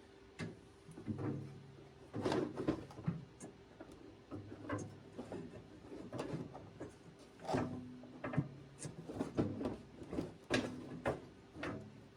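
Irregular clunks, knocks and scrapes of parts being worked into place inside a Bobcat 7753 skid steer, as the fan and its braces are fitted up in the engine bay. A faint steady hum runs underneath.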